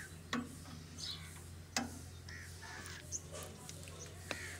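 Several short bird calls, with a few sharp clicks and a steady low hum underneath.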